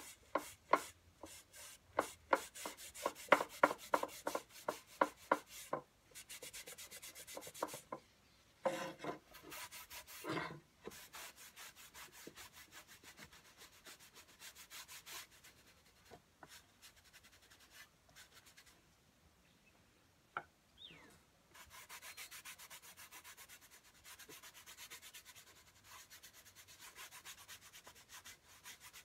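A cloth rag rubbed back and forth over a wooden produce box, working wood stain into the wood. Quick rhythmic strokes, about three a second, fill the first few seconds, then give way to longer, softer wiping.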